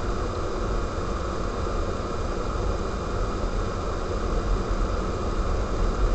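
Steady low rumble and hiss of a car driving on a snow-covered road, heard from inside the cabin: engine, tyre and wind noise mixed together, growing a little louder near the end.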